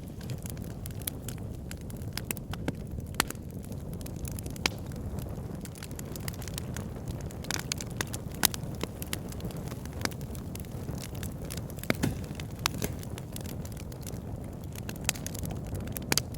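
Campfire burning: a steady low rumble of the flames, with irregular sharp crackles and pops of the burning wood, a few of them louder.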